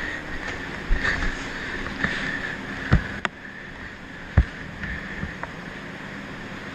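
Steady rushing movement noise on a body-mounted action camera as the wearer moves, with a handful of sharp knocks scattered through the first five seconds or so.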